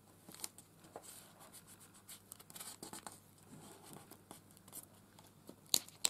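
Paper crinkling and crackling as hands handle and smooth collage papers on a craft table, in irregular soft scratchy strokes with a sharper crackle near the end.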